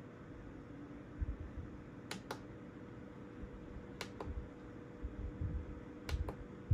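Push buttons on the base of an Opolar battery desk fan clicking: a double click, press and release, about every two seconds, three times, over a faint steady hum.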